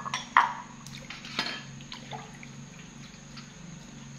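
Water splashing and dripping as dishes are washed by hand in a metal basin, with a few short sharp drips and splashes, the loudest about half a second in.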